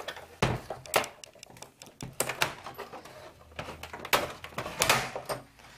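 Plastic housing parts of an HP Compaq 6000 Pro all-in-one PC being pried apart: a string of irregular sharp clicks and knocks as its clips give way.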